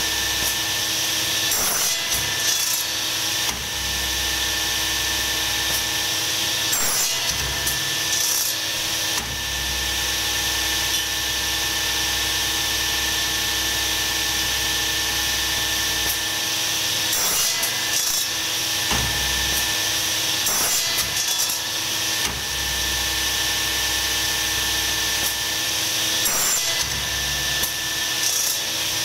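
Industrial machine running steadily, with a constant hum made of several fixed tones over a strong hiss, and a few sharp knocks at irregular intervals.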